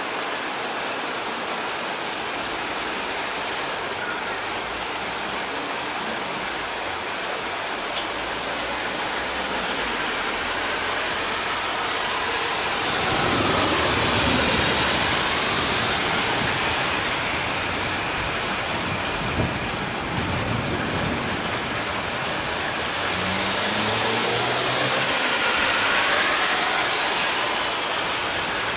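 Heavy rain: a steady hiss of a downpour on roofs and streets, swelling louder twice, about halfway through and again near the end.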